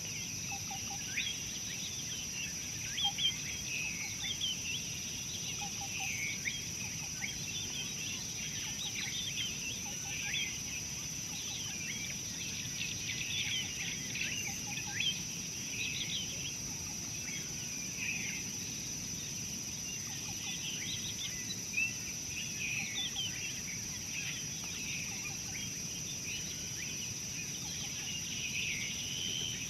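Outdoor bush ambience: a dense, continuous chorus of short high chirps from many small birds, over a steady high-pitched insect drone.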